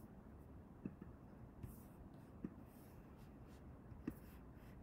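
A handful of faint, short computer mouse clicks spread over several seconds, against low room tone.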